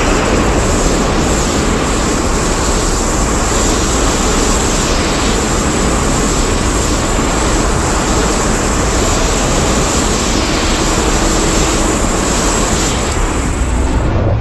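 Monster-film sound effect: a loud, steady rushing noise with no clear pitch, held at an even level throughout.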